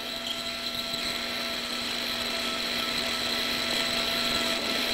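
High-speed otologic surgical drill with a cutting burr grinding mastoid bone under water irrigation, opening toward the lateral semicircular canal: a steady whine over a hiss, growing slightly louder.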